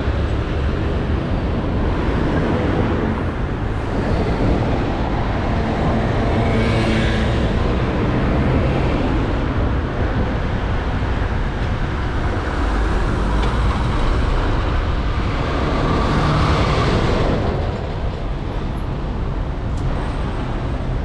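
Street traffic: a steady hum of road noise with vehicles passing, swelling louder twice as they go by.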